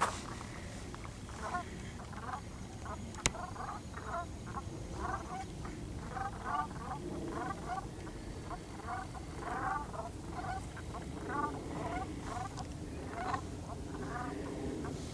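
A flock of geese calling from the water: many short, overlapping honks, several a second. A sharp click sounds about three seconds in.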